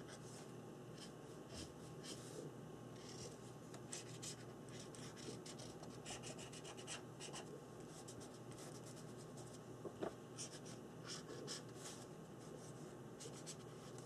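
Green Faber-Castell Pitt big brush pen drawn across a paper-collaged art journal page in faint, short, irregular scratchy strokes, with some rubbing as the ink is blended in.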